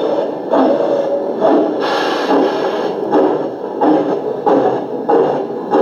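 LGB G-scale model train running on its track, with a rhythmic pulse repeating about every half second.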